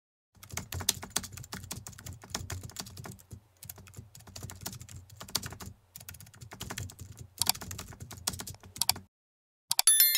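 Rapid computer keyboard typing, with a few short pauses, that stops about nine seconds in. Near the end come a few sharp clicks and a bright ringing bell ding, as the notification bell of a subscribe button is clicked.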